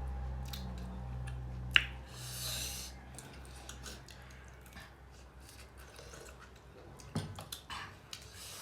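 Close-up eating sounds: soft chewing with small clicks of a spoon against a plate, one sharp click about two seconds in followed by a short hiss. A low steady rumble of road traffic fades out about three seconds in.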